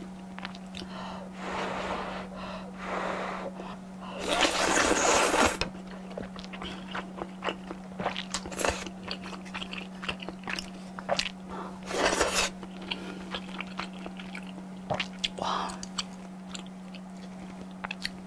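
Close-miked eating of thick udon noodles: rushing slurps, loudest about four to five and a half seconds in and again about twelve seconds in, between wet chewing with many small mouth clicks. A steady low hum runs underneath.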